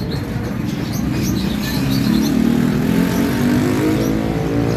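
A motor vehicle engine running close by, its pitch rising over the middle of the stretch.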